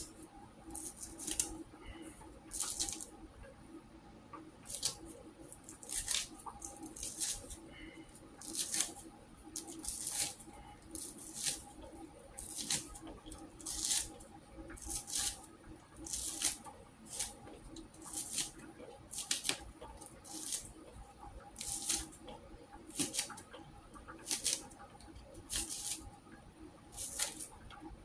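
Kitchen knife slicing a fresh celery stalk into pieces on a plate: short, sharp cuts, about one a second at an uneven pace, over a faint steady hum.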